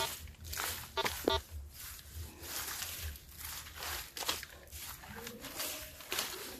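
Footsteps and crackling rustle of dry leaves and grass underfoot, with two short buzzy chirps near the start and about a second in.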